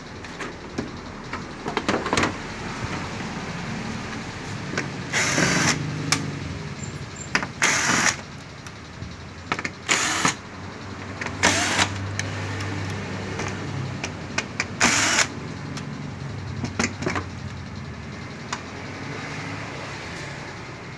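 Cordless electric screwdriver whirring in about five short bursts of roughly half a second each as it backs out the screws holding a TV's power supply board, with light clicks between the bursts.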